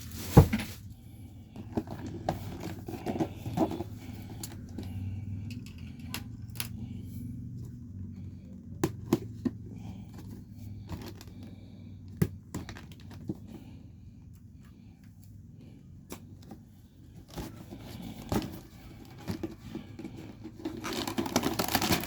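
Cardboard model-kit box being opened and handled: scattered taps and knocks of the box and lid, with paper and packaging rustling and tearing, and a denser rustle near the end.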